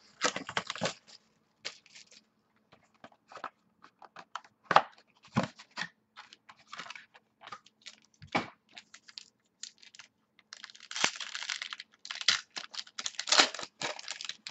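A box of 2014 Tier One baseball cards being opened by hand: scattered clicks and taps of cardboard, with stretches of tearing and crinkling wrapper, longest near the end.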